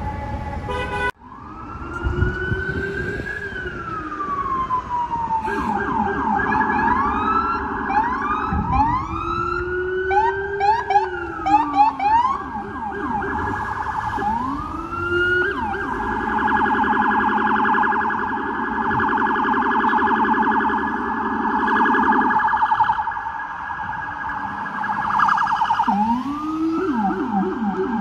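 FDNY emergency vehicle electronic sirens cycling through patterns: slow rising-and-falling wails, then bursts of rapid yelping sweeps, then a long fast warble, with a new wail rising near the end. A steady horn blast cuts off abruptly about a second in.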